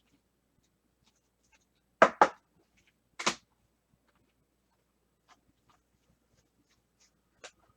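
Handling noise from sorting trading cards: a quick pair of sharp slaps or clacks about two seconds in, another a second later, and a few faint ticks near the end.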